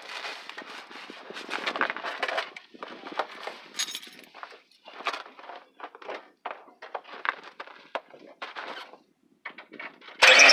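Irregular handling noises: light knocks, clicks and rustles. Near the end, a car engine with a leaking tailpipe cuts in abruptly and loudly.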